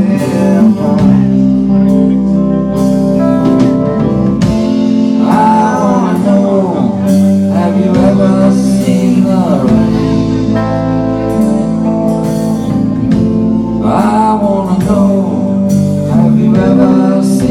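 Live band playing with electric guitars, bass and drums, with a man singing in two stretches, about five seconds in and again near the end.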